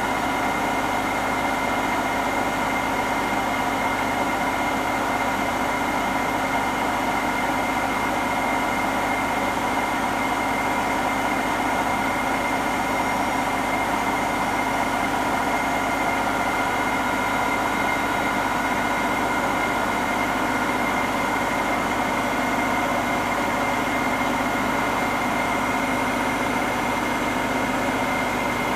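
Hotpoint NSWM 843C Invermotor washing machine spinning its empty drum on a 1400 rpm spin cycle: a steady hum and whine with several high tones held level. The owner wonders whether this noise means the drum bearings are starting to go.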